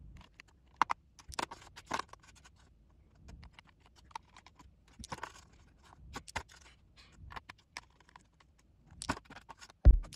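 Plastic dice clicking and clattering in scattered bursts as they are rolled on a tabletop and dropped into the plastic compartments of a dice tray. A single heavier thump near the end is the loudest sound.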